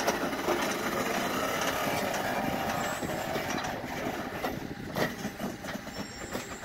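Truck engine running steadily. It eases off about three seconds in, and a few sharp knocks follow near the five-second mark.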